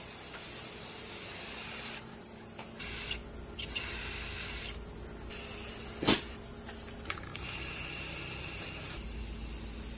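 Aerosol can of Rust-Oleum paint-and-primer spraying in a run of short hisses that start and stop, as hinges and pulls get a black coat. There is a single sharp click about six seconds in.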